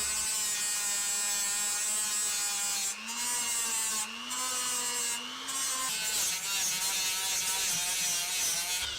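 Straight grinder with a flap wheel running at high speed, a steady whine whose pitch rises a little in the middle and drops back near six seconds, with brief dips as it is worked against the metal. It is grinding rust out of the weld and spot welds on the rear subframe mounting area.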